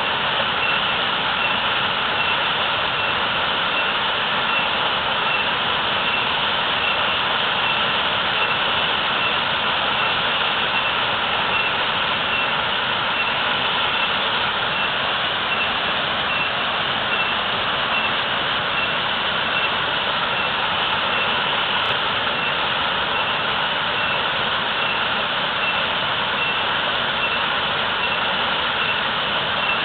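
Waterfall running heavily: a steady, unbroken rush of falling water.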